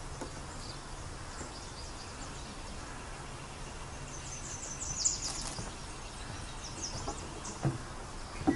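Songbirds singing in the background over a steady outdoor hiss, with a burst of high-pitched song about five seconds in and more short phrases about two seconds later. Two short dull knocks come near the end.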